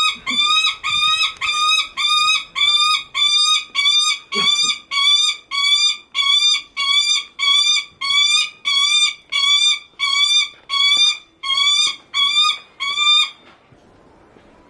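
Lanner falcon calling over and over, a rapid series of short, harsh, shrill notes at about two a second that stops about 13 seconds in. It is the falcon's attention-seeking call to its keeper.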